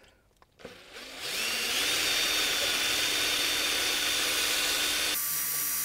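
Electric drill with a long twist bit spinning up about a second in and running steadily, boring into the seized plastic body of an ABS wheel speed sensor in its hub carrier. The drill's whine rises as it gets up to speed, and its tone changes near the end.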